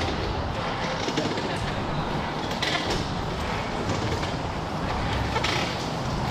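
Wind buffeting the microphone: a steady rushing noise with an uneven low rumble, and a couple of brief clicks.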